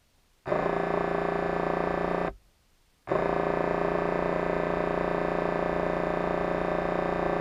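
Background synthesizer music with sustained chords, coming in about half a second in, dropping out for most of a second after two seconds, then carrying on.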